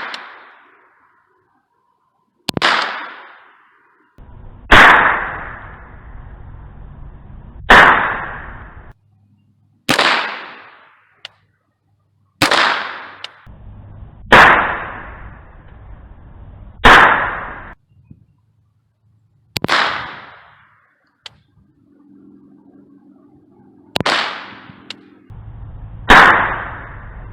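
.22 rimfire rounds fired one at a time from an AR-15 pistol running a .22 conversion kit: about ten sharp shots, two to four seconds apart, each followed by a short echo.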